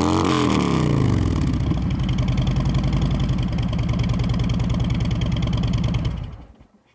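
Harley-Davidson 2017 Street Glide's Milwaukee-Eight V-twin running through Vance & Hines High Output 450 slip-on mufflers on stock headers. A throttle blip falls back to a steady idle, then the engine is switched off about six seconds in and dies away.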